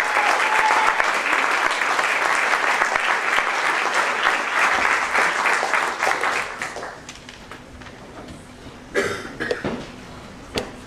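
Audience applauding in a hall, the clapping dying away about two-thirds of the way in; a few short, sharp sounds follow in the quiet.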